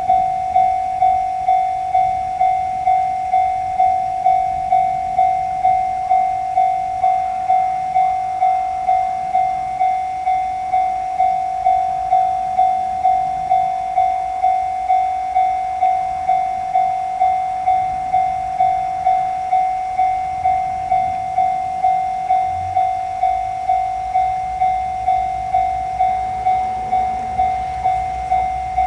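Japanese level-crossing warning bell ringing its 'kan-kan' at about two strokes a second. About three-quarters of the way through, a train's low rumble comes in and grows as it draws near.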